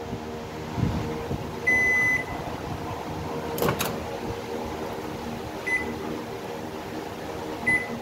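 Panasonic Inverter microwave's control-panel beeps: one longer beep about two seconds in and two short beeps near the end, with a sharp click in between, over a steady low hum. The oven has just cut out with its H98 inverter error.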